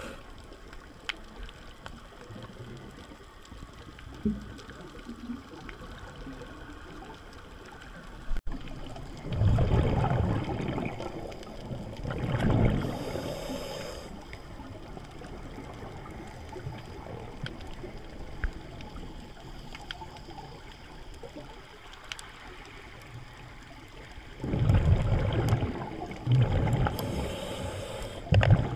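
Scuba breathing heard underwater through the camera housing: exhaled air bubbles out of a regulator in several loud rumbling bursts, with a short hiss of inhalation between them, and a quiet steady hiss between breaths.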